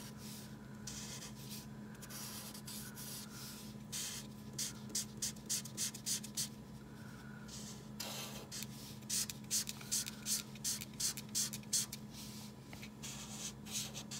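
Purple marker tip scratching across paper as a zigzag band is coloured in: short back-and-forth strokes, coming in quick runs of about three a second in the second half. A faint steady low hum runs underneath.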